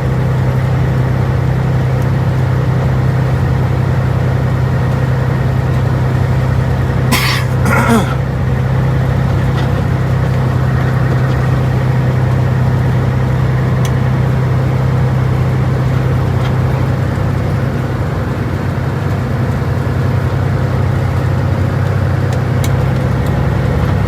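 Caterpillar C15 diesel engine of a Peterbilt 379 semi truck running with a steady low drone, easing slightly after about seventeen seconds. About seven seconds in there is a short cough-like noise.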